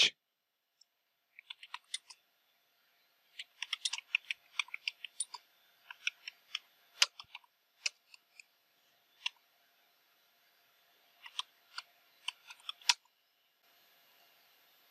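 Typing on a computer keyboard: irregular bursts of key clicks with pauses between them, ending in a sharper key press near the end as the command is entered. A faint steady hiss follows.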